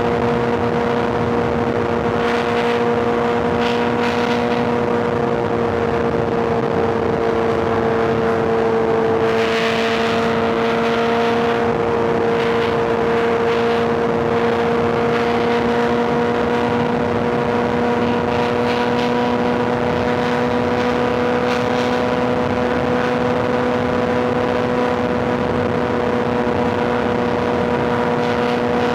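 Inline-four sportbike engine running at a steady cruise, its pitch dipping slightly about a third of the way in and then creeping back up, over wind and road rush.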